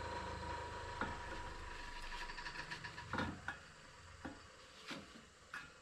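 Light metal clicks and scrapes of a tool working the bearing retaining clip inside a dirt bike wheel hub, a handful of sharp ticks spread over the last few seconds. A steady low hum runs underneath and stops about halfway through.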